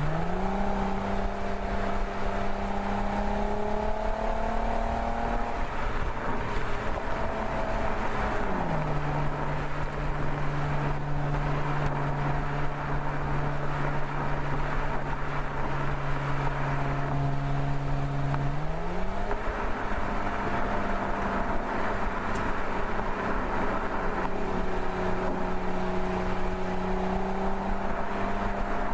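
Mercedes-Benz SL's engine running under way at steady speed over road and wind noise. Its pitch jumps up sharply at the start, steps down about eight and a half seconds in, and climbs back up about nineteen seconds in as the engine speed changes.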